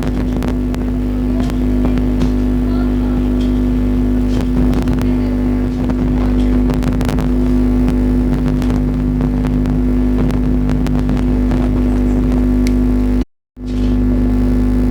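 Computer keyboard keys clicking irregularly as someone types, over a loud steady machine hum. All sound cuts out for a moment near the end.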